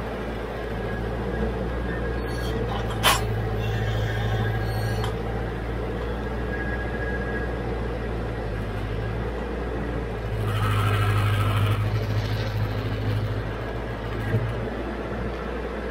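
Branson 5220 tractor's diesel engine running steadily under load as its grapple root rake drags roots and brush through the soil. A single sharp knock comes about three seconds in, and the sound grows louder for a couple of seconds about ten seconds in.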